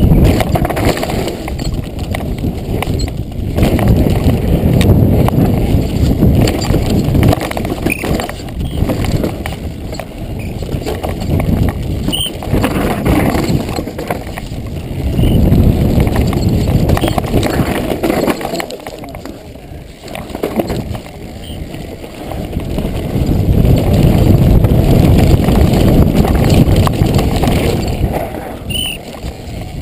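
Downhill mountain bike descending a rough dirt and stone track at speed: tyres rolling and skidding over the dirt and the bike rattling over bumps, with wind rumble on the microphone that swells and dips with speed.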